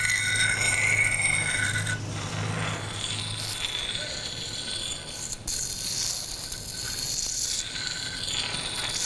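Stones being rubbed and scraped together in a grainy, rasping grind. A held ringing tone sounds over it and stops about two seconds in, and there is a sharp click about five and a half seconds in.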